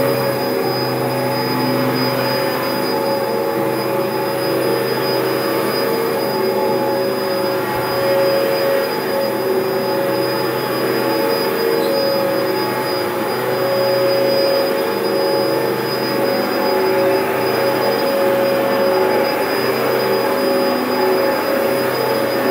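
Dyson DC01 upright vacuum cleaner running steadily while vacuuming, its motor drone and a constant high whine over a rushing of air, with small shifts in pitch as the machine is pushed and pulled across the floor.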